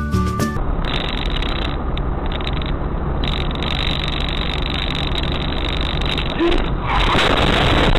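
Steady engine and road noise of a moving car, recorded by a dashcam's microphone, that grows louder near the end. Background music cuts off in the first second.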